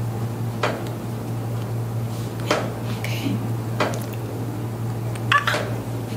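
Hands rubbing and kneading over the skin and shoulders during soft-tissue massage of the trapezius muscles: a few short scuffing strokes, about one every second and a half, over a steady low hum.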